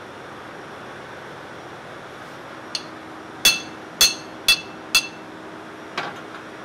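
Hand hammer striking a spanner to tighten the disc clamp plate nut on a Mitsubishi Selfjector fuel oil purifier bowl, compressing the disc stack. A light tap comes first, then four sharp ringing metal-on-metal blows about two a second, then a weaker blow about a second later.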